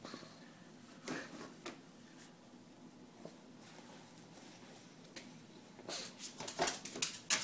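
A pug pawing at the edge of a covered table: short scratches and rustles of its claws on the cover, a few scattered ones at first and then a quick cluster near the end as it moves about.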